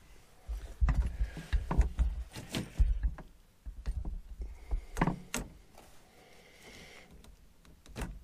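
Hands working a SharkBite push-fit shutoff valve onto half-inch PEX water pipe: irregular knocks, clicks and rubbing as the fitting and pipe are handled, with heavy low thumps in the first few seconds and a few sharper clicks about five seconds in.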